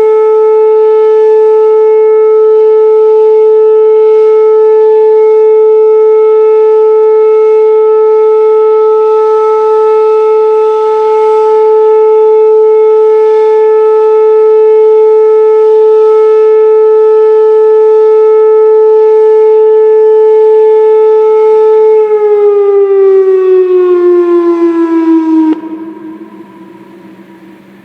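Whelen WPS 2810 electronic outdoor warning siren sounding a loud, steady alert tone. About three quarters of the way through, the pitch slides down for a few seconds, then the tone cuts off and the sound dies away.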